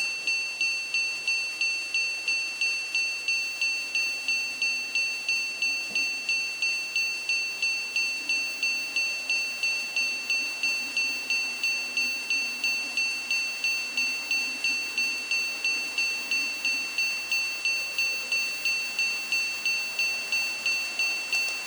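Model railway level-crossing warning bell ringing steadily, an even repeated ding about two and a half times a second.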